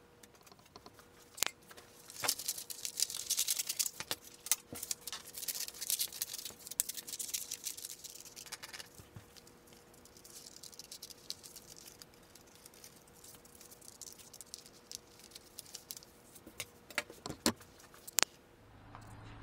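Scissors snipping through sheets of printer paper while the paper rustles and crinkles as it is handled, in irregular bursts of crackling with a few sharp clicks.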